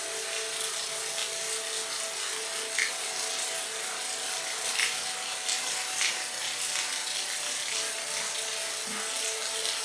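Steady rain, an even hiss with a few louder individual drop hits, under a faint steady hum of two low tones.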